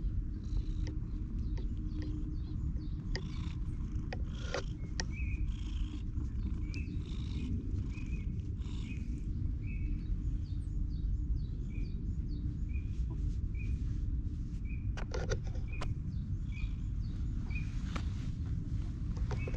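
Stray cat purring close to the microphone as it is stroked, a steady low rumble with the rustle and clicks of hands in its fur. From about five seconds in, a bird chirps repeatedly, about once a second.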